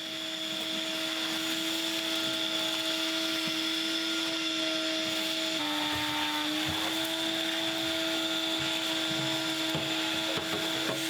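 Shop vacuum running steadily, a motor whine over rushing air. About halfway through its pitch drops briefly and then recovers.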